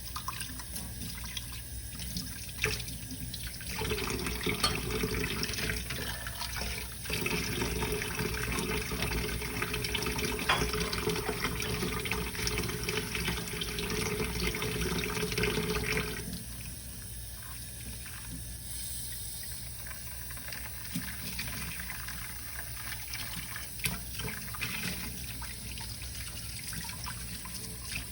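Kitchen sink tap running onto dishes being washed, with a steady tone from the running water. The tap comes on about four seconds in, stops briefly, and cuts off about sixteen seconds in. After that come quieter splashes and a few light knocks of dishes.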